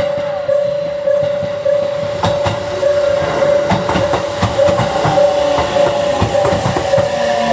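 Japanese railway level crossing alarm ringing steadily, about two strokes a second, as a JR Central 313 series 3000-subseries electric train pulls into the station: wheels clatter over rail joints from about two seconds in, and a falling whine from the train's motors comes in as it brakes toward a stop.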